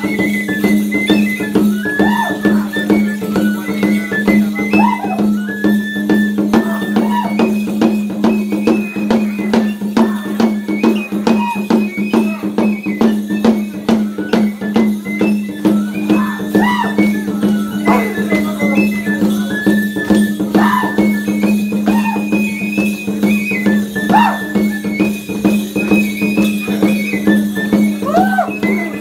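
Traditional Tecuanes dance music: a high melody moving in held, stepped notes over a steady low drone, with a fast, even beat of shaken rattles throughout.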